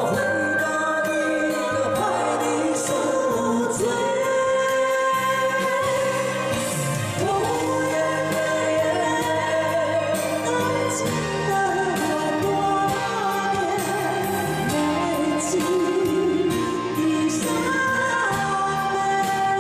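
A sung duet ballad: a voice singing a melody with gliding, held notes over a steady instrumental backing track.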